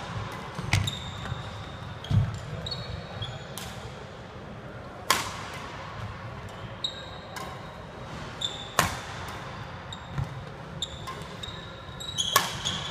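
Badminton rackets striking shuttlecocks in a smash-and-drop drill: sharp cracks every few seconds, with fainter hits between. Short high sneaker squeaks on the wooden court floor and dull footfalls run alongside.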